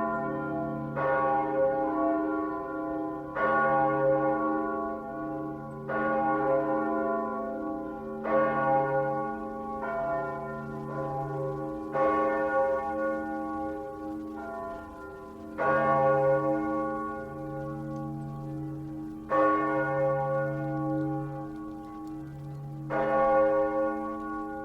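Large church bell tolling, struck about every two to four seconds, each stroke ringing on with a deep hum and overlapping the next.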